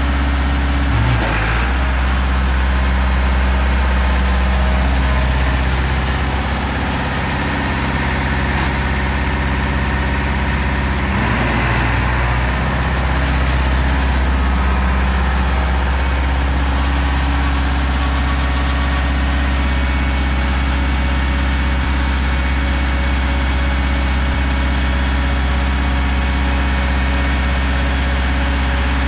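Massey Ferguson 274 4x4 tractor's diesel engine running steadily as the tractor is driven, with brief changes in its note about a second in and again around eleven seconds.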